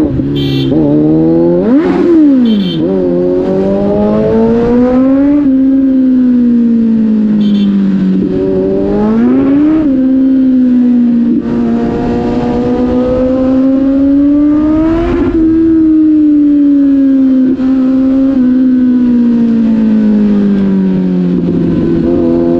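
Kawasaki Z900's inline-four engine running hard under changing throttle, its pitch rising and falling again and again, with sharp rev blips about two seconds in and again near the middle.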